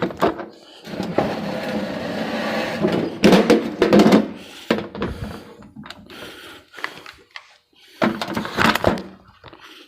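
Handling noise as the camera is picked up and moved back: irregular bumps, knocks and scraping, with a couple of louder clatters partway through and again near the end.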